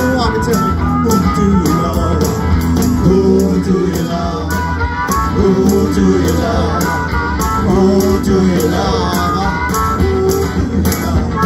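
A live band playing loud blues-rock, with electric guitar over bass and a steady drum beat and a bending melodic line, probably a voice, weaving through.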